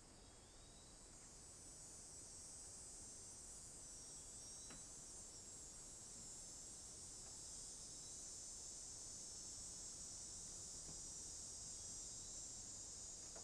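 Cicadas calling: a steady, high-pitched shrill drone that swells over the first couple of seconds and then holds.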